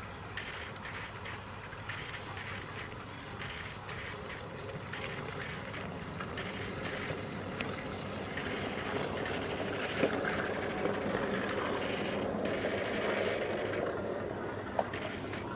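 G-scale electric model railcar running along garden track toward the microphone and past it: its wheels rattle and click on the rails, growing louder as it comes close. There are a couple of sharp clicks, and the rattle drops away near the end once it has passed.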